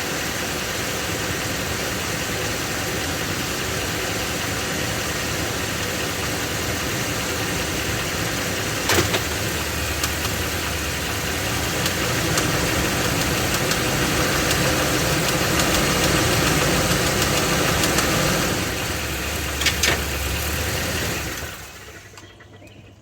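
Ford 7.3-litre Godzilla gasoline V8 running with the abnormal internal engine noise its owner complained of, a fault the dealer's repair did not cure. The engine gets louder for several seconds in the middle, with two sharp clicks, and the sound fades out near the end.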